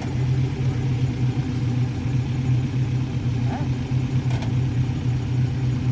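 A car engine running at low, steady revs, with an even, slightly pulsing tone and no revving.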